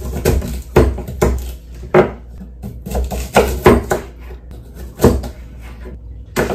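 Kitchen knife cutting sweet potatoes into wedges on a wooden cutting board: a string of sharp, irregular knocks as the blade strikes through to the board.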